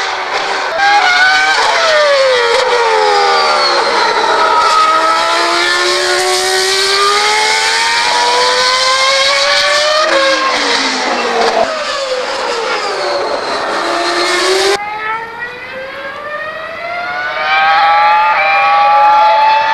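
Formula 1 car engine at high revs, its pitch climbing and falling with sudden drops at gear changes. About fifteen seconds in the sound dulls and dips, then the revs climb again.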